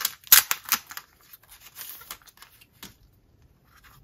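Trading-card pack being opened by hand: a clear plastic wrapper and a paper envelope torn and pulled apart, with a few sharp crinkling rips in the first second, then softer rustling.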